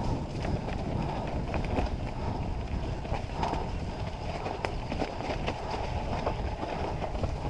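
Mountain bike rolling fast down a wet, muddy forest trail. The tyres make a steady rumbling rush, broken by many sharp clicks and knocks as the bike rattles over bumps.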